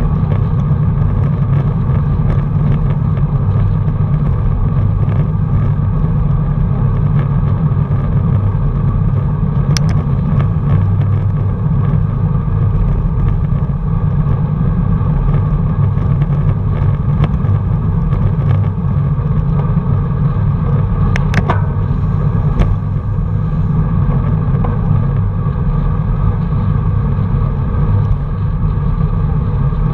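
Wind buffeting the microphone of a camera riding along with road cyclists, a loud steady low rush mixed with tyre and road noise. A few sharp clicks come about a third of the way in and again about three quarters through.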